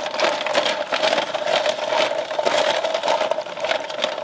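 Snail shells being washed by hand in water in a metal basin: a dense, rapid clattering of shells against each other and the bowl, with water sloshing and a steady ringing note underneath.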